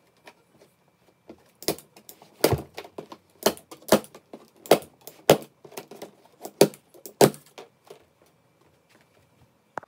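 Plastic packing straps around a cardboard box being cut one after another, each giving a sharp snap: about eight snaps in a few seconds, with light rustling between them.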